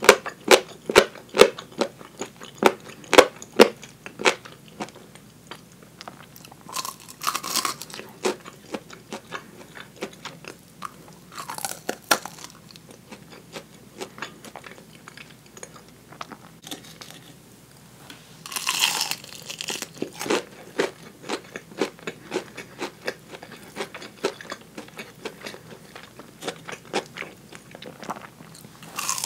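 Close-miked eating of fried chicken drumsticks: a rapid run of crisp crunches from biting through the fried coating in the first few seconds, then quieter chewing with occasional crunches and a few short noisy bursts, with denser crunching returning at the end.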